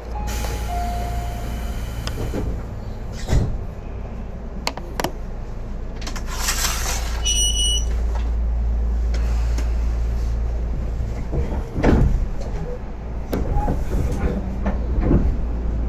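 Inside a Tobu 10030 series commuter train car: a steady low hum, with knocks and thuds from the sliding doors, the loudest near twelve seconds, and a short electronic beep about seven seconds in.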